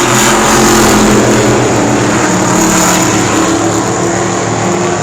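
Several stock cars racing together on an oval track, their engines a loud, steady, overlapping drone.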